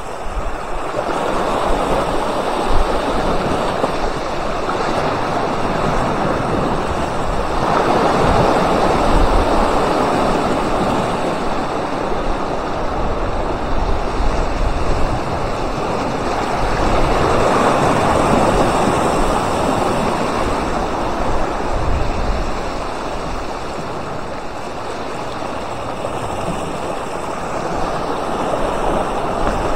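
Sea surf washing and breaking over shore rocks as a continuous rush of water, swelling louder about eight seconds in and again around seventeen seconds.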